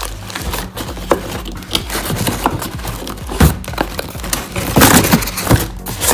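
Plastic-wrapped paint sprayer parts being handled inside a cardboard box: irregular rustling of the wrapping with knocks and clicks against the cardboard, the loudest thuds about three and a half and five seconds in.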